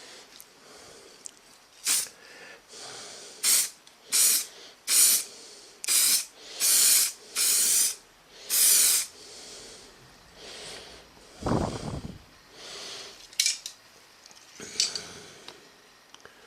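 Primer sprayed from a spray can onto a freshly filled and sanded motorcycle mudguard: about eight short hissing bursts, some longer than others, as a light coat is flashed over to show up imperfections. A muffled bump comes about two thirds of the way through.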